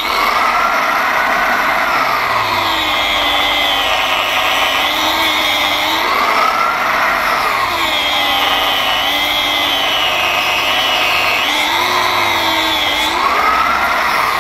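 Angle grinder with an abrasive grinding disc cutting grooves into a rubber car tyre tread. The motor runs continuously, its pitch sagging and recovering over and over as the disc is pressed into the rubber and eased off.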